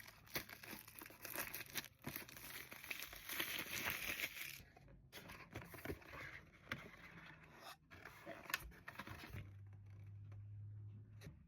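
Packaging being crinkled and torn open by hand, dense rustling with sharp clicks and scrapes. Near the end the rustling stops and a low steady hum runs for about two seconds.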